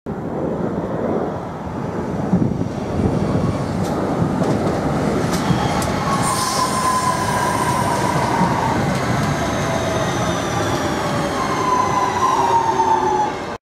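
London Midland Class 350 Desiro electric multiple unit running past along the platform: steady wheel and rail noise with a motor whine that slowly falls in pitch over the second half, and a few sharp clicks from the wheels on the rail joints.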